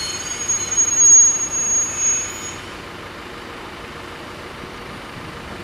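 Electric railcar's wheels squealing on the rails as it rolls slowly round the curve into the terminus, a thin high squeal over the running rumble that is loudest about a second in. The squeal and rumble die away about two and a half seconds in, leaving a quieter steady hum.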